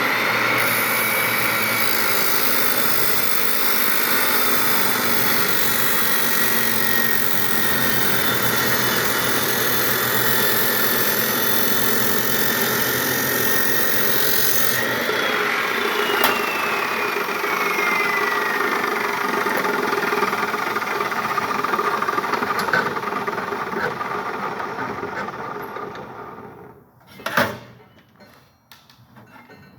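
An old Makita chop saw running and cutting: a steady high whine with a grinding hiss. About halfway the hiss drops off and a whine slides down in pitch. Near the end the saw winds down and stops, with one sharp click.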